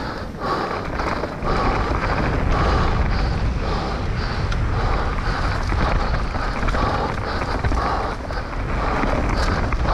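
Mountain bike riding a trail, heard from a camera carried on the bike or rider: steady wind rumble on the microphone over continuous tyre and trail noise.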